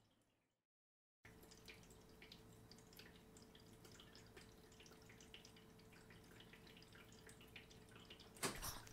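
Near silence: faint room tone with a faint steady hum and scattered tiny soft ticks, after a moment of dead silence near the start. A brief louder noise comes just before the end.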